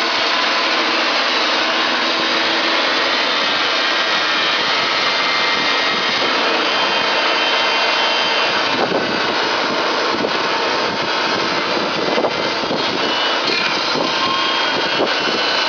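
A Burg sawmill running steadily as it saws. It makes a loud, even engine-and-cutting noise, with a few short ticks in the second half.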